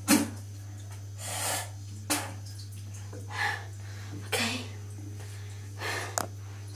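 A person sneezing and breathing hard in a run of short, sharp bursts, about seven in all, the loudest right at the start. This is the nose and throat reacting to a mouthful of dry ground cinnamon.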